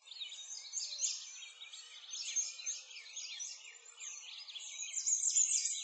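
A dense chorus of small songbirds: many quick, high-pitched chirps and trills overlapping, with almost no low sound beneath.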